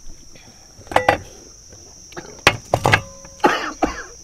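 Metal spoons knocking and scraping against stainless-steel bowls, two of the knocks leaving a short metallic ring, followed by a cough near the end.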